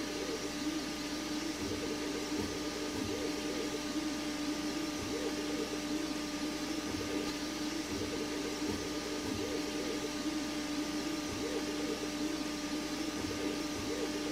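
FLSun S1 Pro delta 3D printer running a fast PLA print. A steady fan hum sits under stepper motors whining in short wavering bursts as the print head moves, with soft low knocks now and then.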